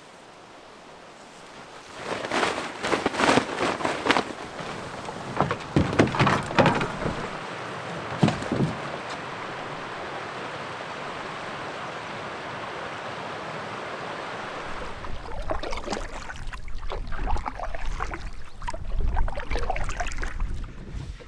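A run of knocks and rustles, then a steady rush of flowing river water. In the last few seconds come irregular canoe paddle strokes in the water, with wind rumbling on the microphone.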